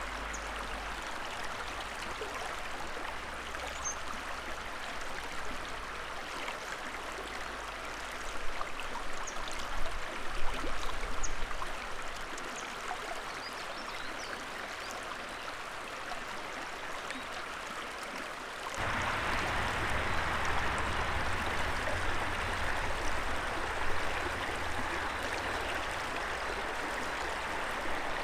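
Shallow, fast-flowing river running steadily over its bed. The noise is briefly louder and uneven around ten seconds in, then turns suddenly louder and fuller about two-thirds of the way through.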